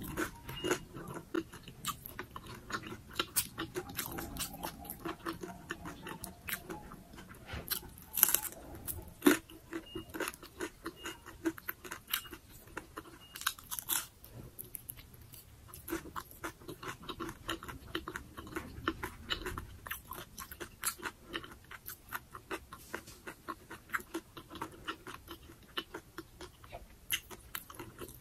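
Close-up chewing and crunching of fried dynamite lumpia, a chili pepper wrapped in a crisp spring-roll wrapper, with a steady run of sharp crunches.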